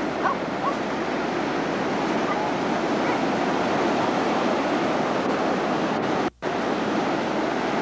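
Ocean surf breaking and washing up a sandy beach, a steady rushing noise. The sound cuts out for a moment about six seconds in.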